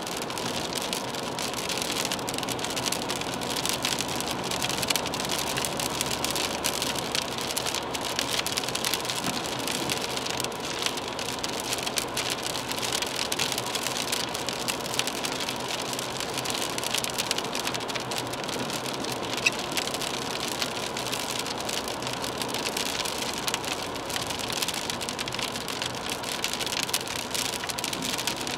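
Rain striking the windscreen and roof of a moving BMW 320d, heard from inside the cabin as a dense, steady ticking of drops over the hiss of tyres on a wet road and a faint steady hum from the car.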